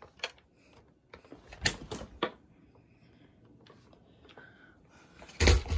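Handling noise: scattered clicks and knocks as the phone is picked up and moved about, with a loud thump near the end.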